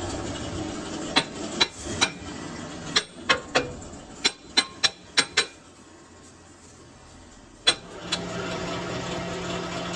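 A series of sharp knocks, hammer-like blows on a workpiece, about a dozen in quick irregular succession, then one more after a pause, over the steady running noise of workshop machinery that drops away briefly and comes back.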